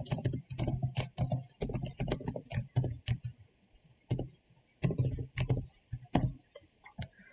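Typing on a computer keyboard: a quick run of keystrokes for about three seconds, a short pause, then scattered single keystrokes.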